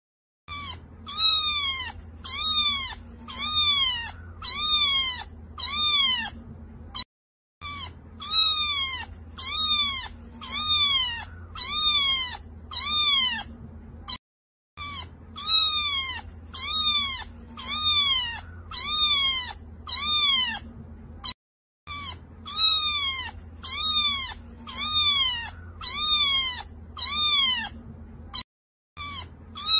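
A cat meowing over and over, about one meow a second, each meow rising and then falling in pitch. The meows come in runs of about seven, each run cut off by a brief silence and starting again, four times over: a short meowing clip looped.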